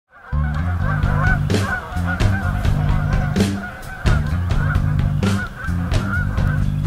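A flock of geese honking repeatedly, cutting in abruptly after a moment of silence, over a strong low rumble.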